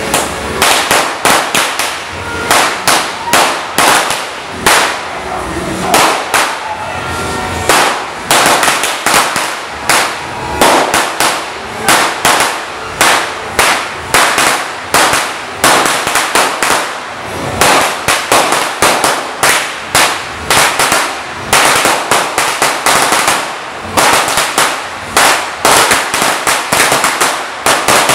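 Judas belt, a long string of firecrackers, going off in a continuous rapid crackle of sharp bangs, with louder clusters about twice a second.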